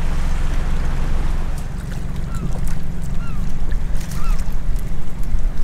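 Wind buffeting the microphone on a small open boat at sea, a heavy low rumble over the hiss of water lapping. In the second half come scattered sharp clicks and a few short high chirps.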